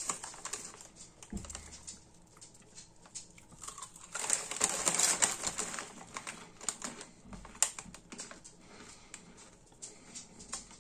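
Lorenz Crunchips potato chips being chewed: a run of rapid, crackly crunches, loudest about four to six seconds in.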